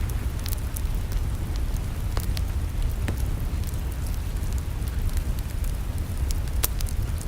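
Wood fire in a fireplace crackling: scattered sharp pops and snaps, a few louder ones about two, three and nearly seven seconds in, over a steady low rumble.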